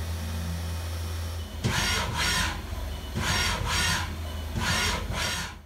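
Haas VF-2 CNC vertical mill's table making short repeated axis moves: pairs of brief servo whines that rise and fall in pitch, about every one and a half seconds, over a steady low hum.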